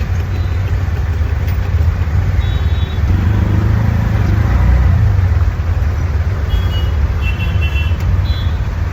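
Busy road traffic: a steady low rumble of engines, with several short horn honks about two and a half seconds in and a cluster more near the end.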